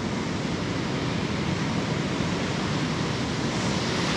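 Steady rush of ocean surf breaking on a sandy beach, with a low wind rumble on the microphone.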